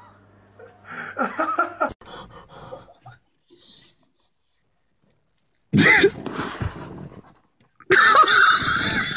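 People's voices breaking out into loud laughing and yelling in two bursts, about six seconds in and again near the end, after a quieter voice early on and a short near-silent gap.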